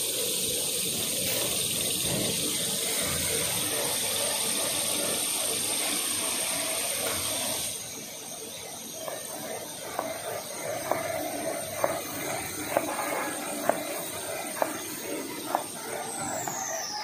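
Automatic toilet-paper converting line running: a steady high-pitched whine holds at one pitch, then glides down and stops near the end, over a loud hiss that drops off about halfway through. In the second half the machinery clacks sharply about once a second.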